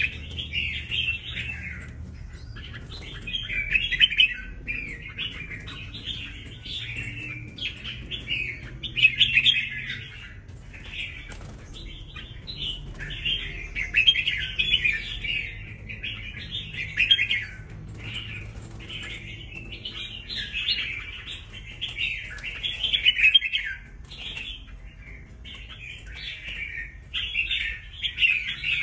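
Wild-caught red-whiskered bulbul singing in its cage: short, loud chirping phrases one after another with only brief gaps.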